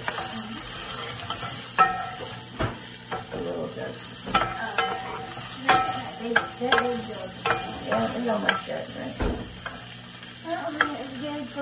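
Sausage sizzling as it browns in a cast-iron skillet, stirred around the pan: a steady frying hiss with frequent sharp clicks and scrapes of the utensil against the iron.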